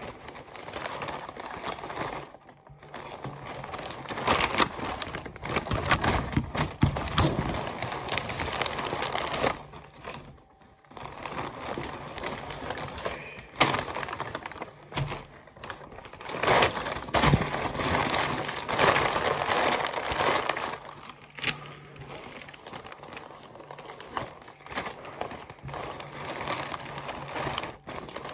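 White paper wrapping of a takeaway fish and chips parcel crinkling and rustling as it is unfolded and pulled open by hand, on and off with a couple of short pauses.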